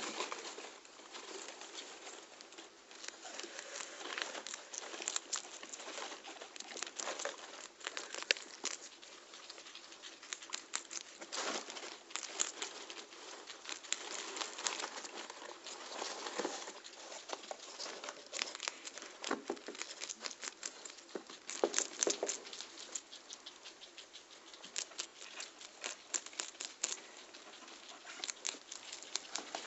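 Guinea pigs chewing and crunching pieces of yellow bell pepper close to the microphone: a dense, irregular run of small crunches and nibbling clicks.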